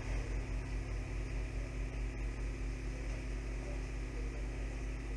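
Steady electrical mains hum with a layer of hiss, with a few faint ticks.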